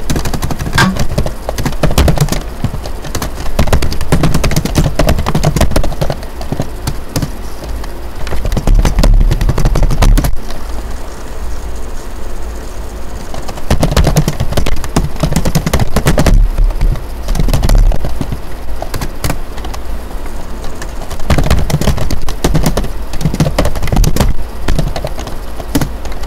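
Computer keyboard typing: quick runs of clicking keystrokes with short pauses between them, over a low rumble.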